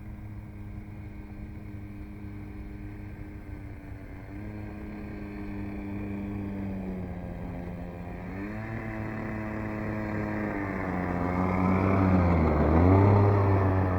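OS 61 FX two-stroke nitro glow engine of an RC model aerobatic plane running, its pitch stepping up and down several times as the throttle is changed. It grows louder toward the end, with a brief dip and rise in pitch just before it peaks.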